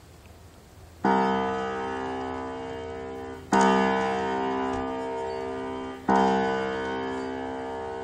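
Weathered outdoor piano, out of tune from being left out by the water, with three full chords struck about two and a half seconds apart, each ringing on and slowly fading. The first chord comes about a second in.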